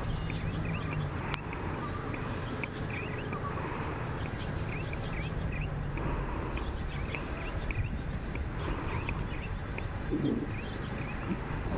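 Small birds chirping, short high notes scattered throughout, over a steady low hum and hiss. A brief, lower, louder call comes about ten seconds in.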